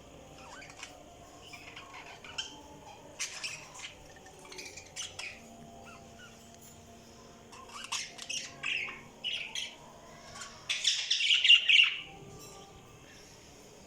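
Budgies chirping and chattering in short, scattered calls, growing busier after about eight seconds and loudest in a burst of rapid chatter near the end.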